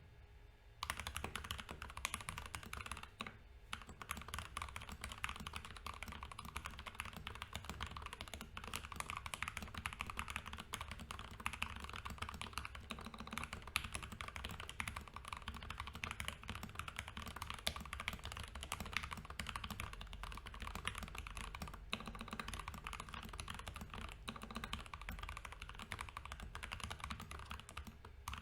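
Steady fast typing on an Idobao ID67 custom mechanical keyboard with lubed Gateron Ink Black V2 linear switches, a dense stream of key strokes starting about a second in, with a brief pause shortly after.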